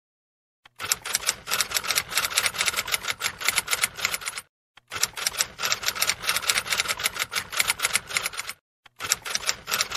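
Typing sound effect: fast key clicks like a typewriter, in three runs of about four seconds each, separated by short pauses.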